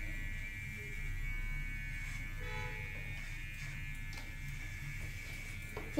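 Steady electric buzz and low hum from a running appliance or small motor, with a steady faint high whine above it and a few faint knocks.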